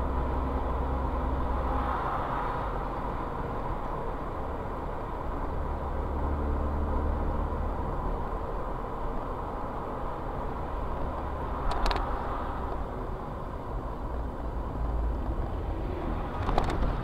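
Steady low rumble of a car on the move, engine and tyre noise picked up by a dashcam inside the cabin, with a short knock about twelve seconds in and a few more near the end.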